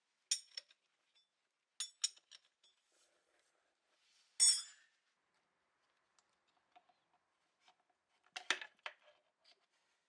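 Scattered clicks and clinks of small metal parts and tools being handled, with a louder scrape about four and a half seconds in and a quick cluster of clinks near the end.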